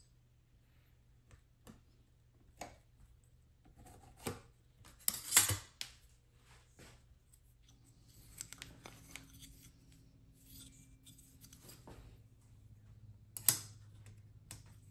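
Small hand-work noises at a bench: scattered clicks and scrapes, with the loudest cluster about five seconds in and another sharp one near the end, over a faint low hum.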